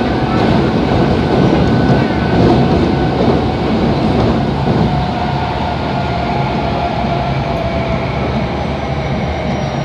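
Kobe Municipal Subway 3000 series car with a Hitachi GTO-VVVF drive, heard from inside while running through the tunnel. Wheels rumble steadily on the rail, with several faint steady whining tones from the traction equipment laid over them.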